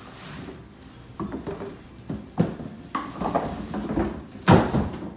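A cardboard product box being dragged out of a cardboard shipping carton: rustling and scraping of cardboard on cardboard, with a string of short knocks and scrapes. The loudest comes about four and a half seconds in.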